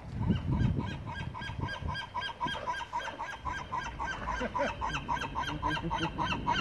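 An animal calling in a fast, even series of short, pitched calls, about four or five a second.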